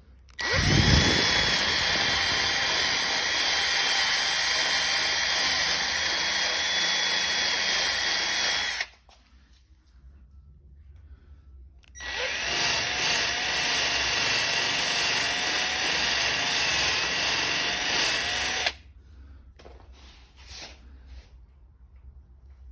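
Handheld electric power sander run twice on a painted panel. Each run spins up quickly, holds a steady whine for several seconds, then stops sharply.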